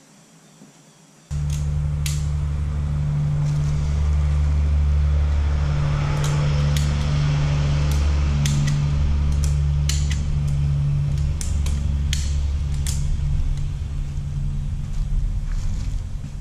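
A loud low rumble sets in abruptly about a second in and holds steady. Over it come scattered sharp metal clicks and clinks as the hydraulic lift-cylinder rod and piston are worked into the cylinder tube.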